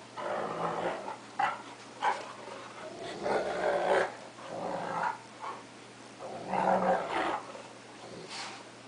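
Two dogs, a wolf–Akita mix and a cocker spaniel, growling while they play-fight, in three rough bouts with a couple of short sharp sounds between them. It sounds mean but is play.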